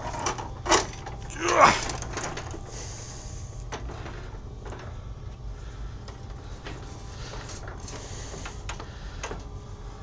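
Knocks, clunks and scrapes of a Murray snowblower's engine and drive assembly being shifted backwards by hand on a metal lift table, with two louder scraping sounds in the first two seconds, then lighter knocks.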